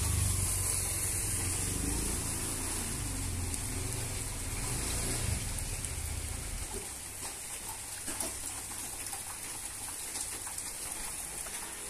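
Water dripping after a rain shower: scattered faint drips over a steady high hiss, with a low rumble on the microphone for the first six seconds or so.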